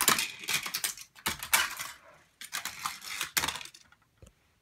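Plastic toy playset pieces rattling and clattering as they are worked at speed, in three quick runs of dense clicks, then a few single clicks near the end.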